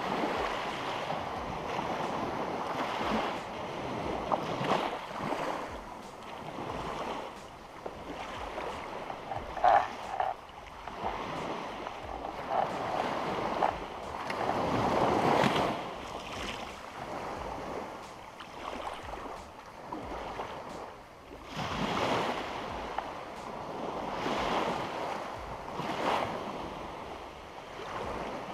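Sea water washing and lapping close by, with wind buffeting the microphone; the wash swells and fades every few seconds, and a brief sharp sound stands out about ten seconds in.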